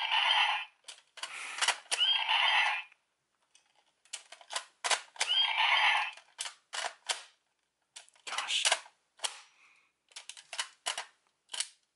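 DX Z Riser toy's small speaker playing the same short electronic sound effect twice, about five seconds apart, each starting with a rising chirp. Between and after them come many sharp plastic clicks as the G.U.T.S. Hyper Key is slid in and out of the Riser's slot and its parts are pressed.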